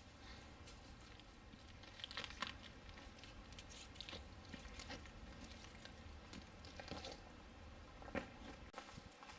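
Faint, irregular crunching footsteps of a hiker walking a dirt trail, a few louder steps standing out.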